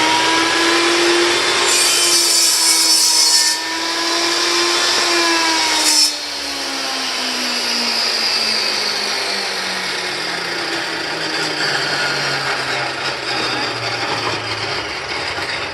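Table saw running, its blade cutting through the strip in two loud passes in the first six seconds. It is then switched off, and the motor hum falls slowly in pitch as the blade coasts down.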